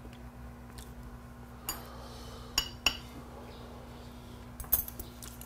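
Metal chopsticks clinking against bowls and dishes as food is picked up and wrapped: a handful of sharp, separate clinks with a short ringing, the loudest near the middle and a quick pair near the end.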